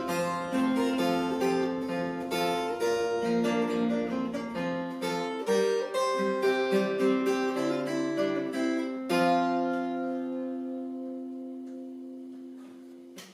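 Acoustic guitar music with plucked and strummed notes, ending on a final chord about nine seconds in that rings on and slowly fades out.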